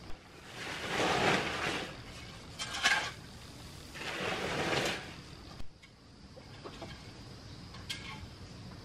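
Hoe scraping and scooping dry loose dirt, two rasping strokes each about a second long, with a sharp knock between them.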